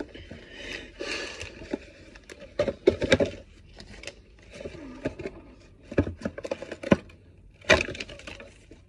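Cardboard toy box being torn open by hand: a series of sharp cracks and rips of card, with rustling of paper about a second in.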